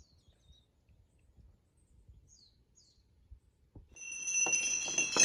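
Near silence for about four seconds, broken by two faint, short, high chirps. Then background music fades in, with several held high tones.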